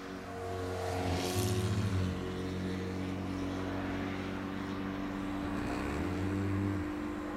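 A sleeping person snoring without a Nastent nasal stent in: two low, fluttering snores, just over a second in and again about four seconds later, over a steady hum.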